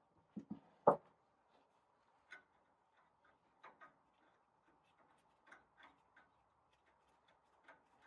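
Irregular knocks and clicks of hand work with tools and hose fittings: two dull thumps and a loud knock about a second in, then scattered light ticks and taps.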